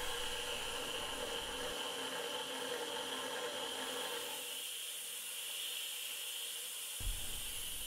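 Steady hiss of a spray nozzle blowing at the cutter of a milling machine as it bores into an aluminium plate.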